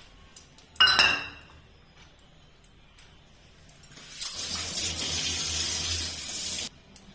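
A utensil clinks once with a ringing tone about a second in. About four seconds in, a kitchen tap runs steadily for about two and a half seconds and is shut off abruptly.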